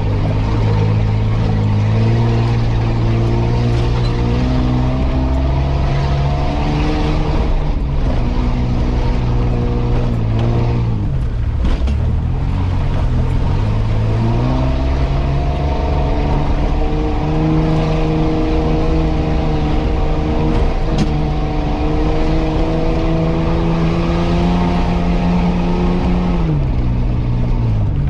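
Off-road 4x4's engine, heard from inside the cab, pulling the vehicle up a rutted dirt track. Its revs climb for several seconds, drop about eleven seconds in, climb again, then fall near the end.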